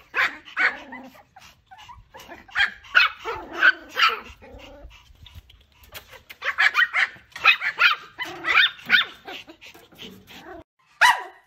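Pomeranian barking in high-pitched yips, in bursts of quick barks with short pauses between them, a fast run of barks in the middle.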